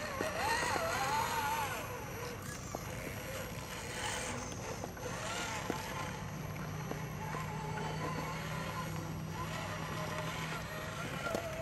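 Axial SCX radio-controlled rock crawler's electric motor and gears whining as it creeps over rock, the pitch rising and falling with the throttle.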